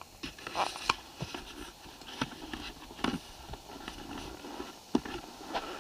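Camera handling noise: irregular knocks, clicks and rubbing scrapes as the camera is moved about and fixed in place.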